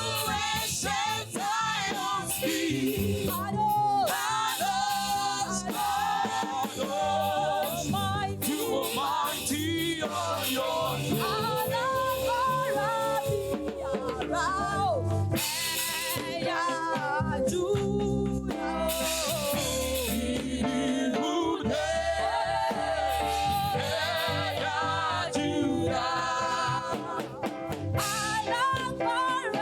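Church choir singing an upbeat gospel praise song with a live band, drums keeping a steady beat under the voices.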